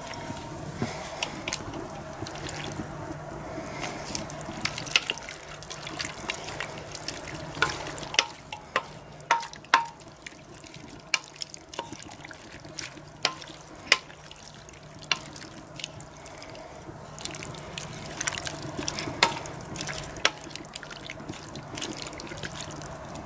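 Wood fire crackling with irregular sharp pops under a hanging stainless steel kettle of pumpkin and water heating up, over a steady watery hiss. A few brief ringing metallic clinks come as the kettle is handled on its chain.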